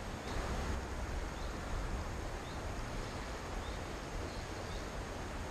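Outdoor riverside ambience: a steady hiss with wind rumbling on the microphone, and faint bird chirps about once a second.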